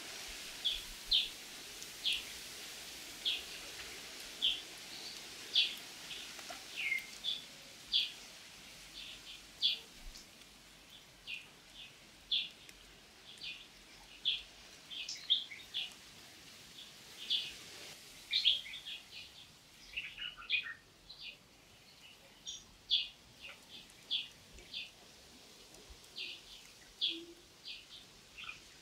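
Small bird chirping over and over, short high chirps about one or two a second, over a faint steady background hiss.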